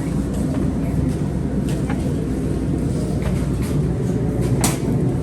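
Wind buffeting the microphone in a blizzard: a steady low rumble, with a few faint clicks and one sharper click near the end.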